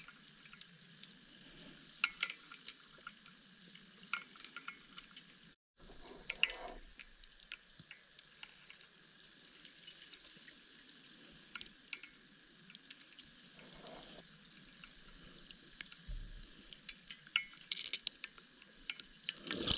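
Underwater ambience during a scuba dive: a steady hiss with many scattered small clicks and crackles, which cuts out completely for a moment about six seconds in.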